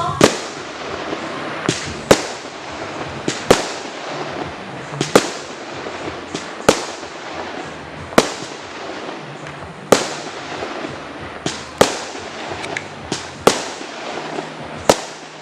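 Fireworks going off: sharp bangs about every one and a half seconds, now and then two close together, over a continuous crackle.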